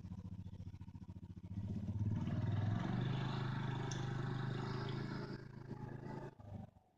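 ATV engine running at a low steady speed, then revving up about a second and a half in and pulling steadily for several seconds before dropping off sharply near the end.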